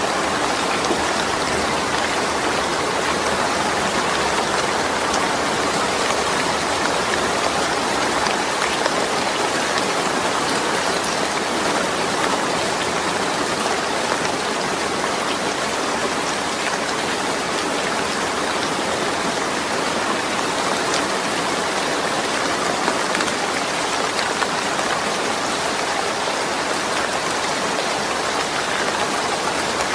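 Steady rain falling, an even patter of drops on surfaces with no thunder.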